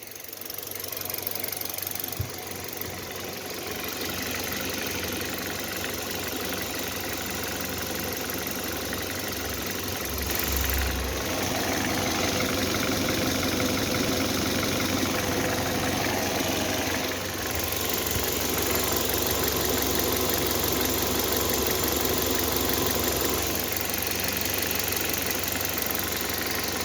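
Hyundai Solaris 1.6-litre four-cylinder petrol engine running steadily, with an extraneous noise in it that the owner is trying to pin down. It gets a little louder from about ten seconds in.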